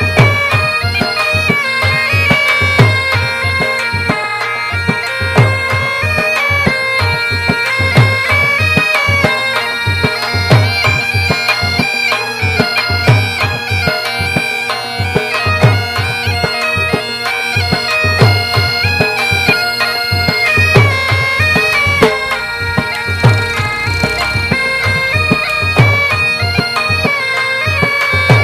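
Background music: a stepping melody over a held drone, with a low drum beat about every two and a half seconds.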